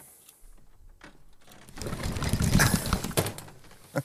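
Knocking and rattling from a wooden travel trunk, dense for about a second and a half about two seconds in, as its lid comes up; a single sharp knock near the end.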